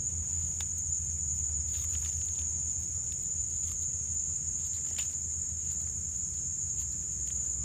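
Insects in the forest making a steady, unbroken high-pitched drone, over a low rumble, with a few faint clicks.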